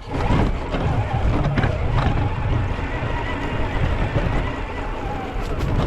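Traxxas TRX4 RC crawler driving over rough trail, heard from a camera mounted on the truck: the drivetrain running with a low rumble, and a few knocks and rattles from the loosely strapped camera bouncing.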